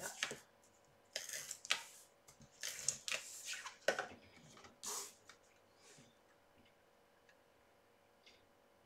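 Sheets of cardstock being smoothed by hand, slid and handled on a tabletop: a run of short papery rustles and scrapes through the first five seconds, then only faint handling sounds.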